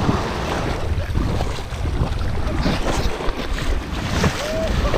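Wind buffeting the microphone over small waves lapping in the shallows, with a brief pitched cry near the end.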